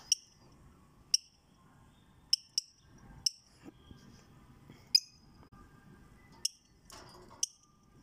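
Fischer's lovebird giving about eight short, sharp, high chirps at irregular intervals, each one loud against a quiet background. This is the loud, noisy calling the owner complains about.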